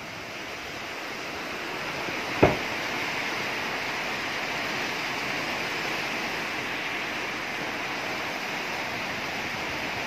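Strong storm wind gusting through palm and banana trees, a steady rushing noise that swells over the first couple of seconds. One short, sharp knock about two and a half seconds in.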